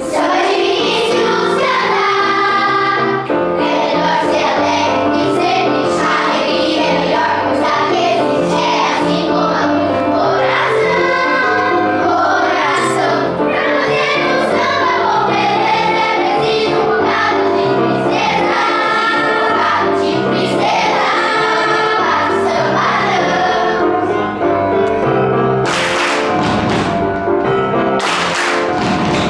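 Children's choir singing a samba song in unison over an instrumental accompaniment with a steady bass line, with a few hand claps near the end.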